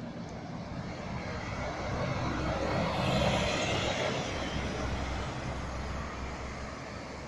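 A bus driving past on the road: its engine hum and tyre noise swell to a peak about three seconds in, then fade as it goes by.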